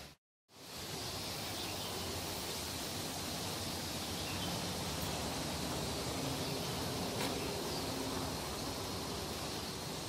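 Steady outdoor background hiss on a wooded hillside, possibly with insects in it, after the sound cuts out for about half a second at the start.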